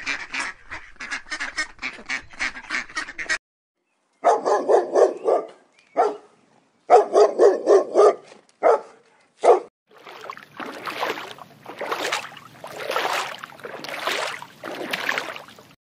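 Waterfowl calling: a fast run of quacks, then after a short pause louder honking calls in short bursts. In the last six seconds the calls give way to a series of whooshing swells, about one a second.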